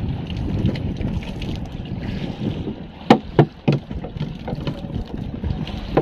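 Wind buffeting the microphone over water around a small fishing boat at sea, with three sharp knocks in quick succession about three seconds in.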